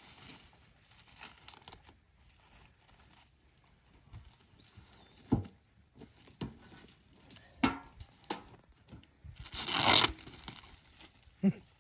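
A few sharp knocks of parts being handled, then a loud tearing noise about a second long near the end, packaging being ripped during an unboxing.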